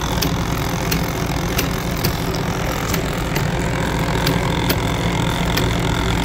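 Motor-driven machine of shafts, gears, roller chain and belts running steadily: a continuous low hum with a sharp click about twice a second.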